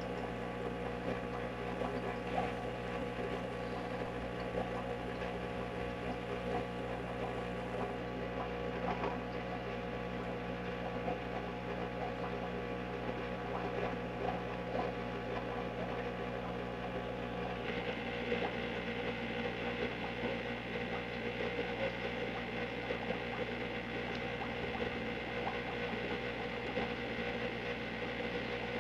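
Steady machine hum made of several held tones, growing brighter about two-thirds of the way through.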